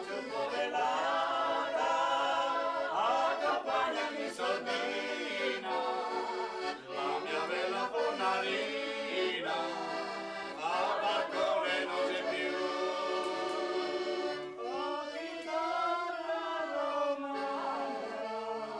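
A woman singing to piano accordion accompaniment, her held notes wavering with vibrato over the accordion's steady chords.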